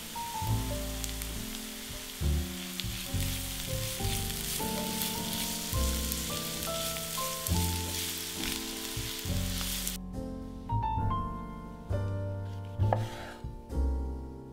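Food frying in vegetable oil, with a steady sizzle under background music. The sizzle cuts off abruptly about ten seconds in, leaving the music.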